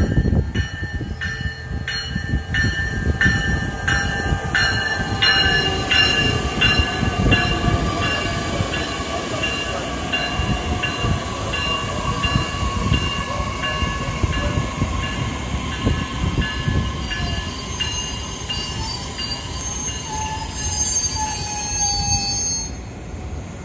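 Metra Electric Highliner II bilevel electric train pulling into a station. A bell rings about twice a second at first and fades out, while a whine from the train slides slowly down in pitch as it slows. High-pitched brake squeal near the end is loudest for the last couple of seconds, then cuts off suddenly as the train stops.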